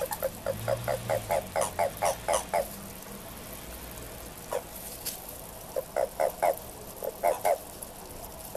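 Japanese common toad calling in spring courtship: a rapid run of short, pitched croaks, about four a second, for the first two and a half seconds, then after a pause a single croak and two short runs of two or three croaks near the end.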